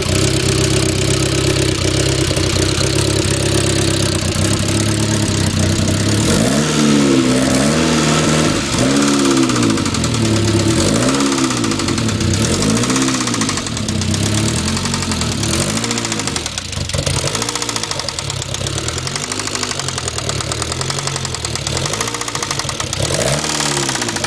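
1997 Saab 9000 Aero's turbocharged four-cylinder engine running loud through a bad exhaust, idling steadily and then revved up and back down about every two seconds from around six seconds in. It carries a ticking from the engine's top end whose cause the owner doesn't know, said to get worse partway through.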